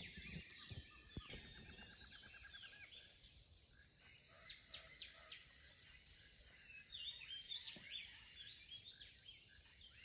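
Birds calling, faint: a rapid trill in the first few seconds, a run of four quick falling whistles about four and a half seconds in, and high chattering calls a few seconds later.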